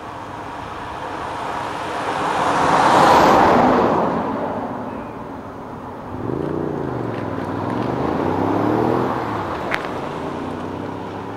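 Cars passing on the road. The first one's noise swells and fades about three seconds in. Then an engine's pitch rises and falls for a few seconds, and a single sharp click sounds near the end.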